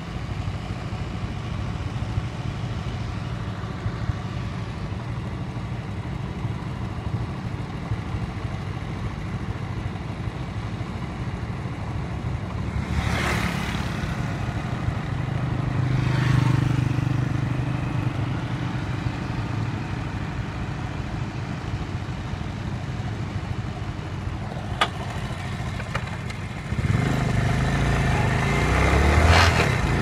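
Tractor engine running steadily while driving a wheat thresher. About halfway through a motorcycle passes close by, and near the end a louder engine comes in.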